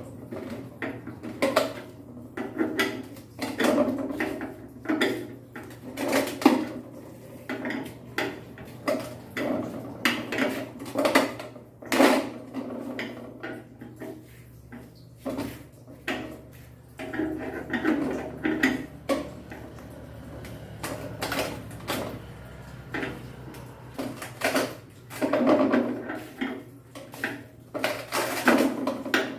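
Hand tools and metal parts clinking and knocking irregularly while the support bracket is fastened to a washing machine drum, some strikes ringing briefly, over a low steady hum.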